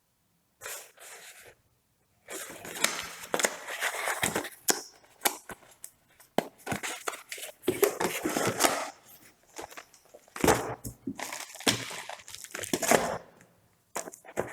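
Packaging being handled, torn open and crumpled in irregular bursts of crinkling and tearing, with sharp crackles throughout.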